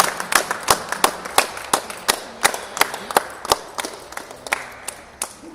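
A small group clapping, about three claps a second at first, thinning out and fading away near the end.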